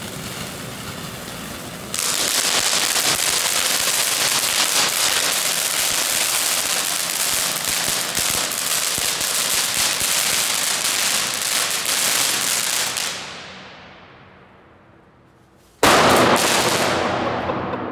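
Two small category 1 firework fountains spraying sparks: a steady hiss dense with tiny crackles that grows much louder about two seconds in and dies away near the end of their burn. Near the end another sparking firework flares on the road with a sudden loud hiss that fades off.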